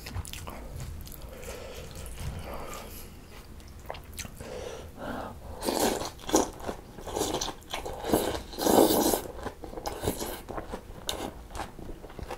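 Close-miked eating of mulhoe, cold spicy raw-fish soup with noodles: wet chewing and crunching, with a run of louder slurps of noodles and broth from about halfway in, the loudest near the end.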